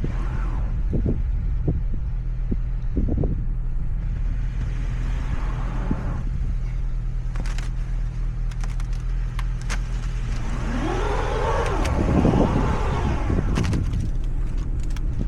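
Car engine running with a steady low hum, with scattered light clicks and knocks. About ten seconds in, a whine rises and then falls back over two or three seconds.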